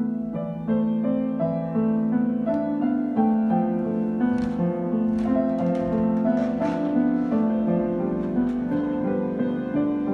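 Piano music: a waltz played as a melody of steady notes over a changing lower accompaniment.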